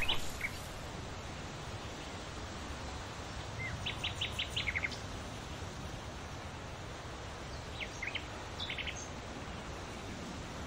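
Quiet outdoor ambience: a steady low hiss with small birds chirping, in a quick run of short notes about four seconds in and another about eight seconds in.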